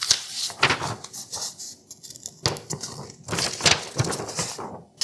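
A sheet of copy paper rustling and being sliced by a sharp, new Henckels Elan prep knife in a paper-cut sharpness test. The sound is irregular scratchy rustling with a few louder strokes.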